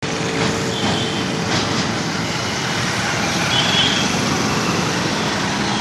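Street traffic of motorcycles, auto-rickshaws and cars passing: a steady mix of small engines and tyre noise, with two short high beeps, about a second and three and a half seconds in.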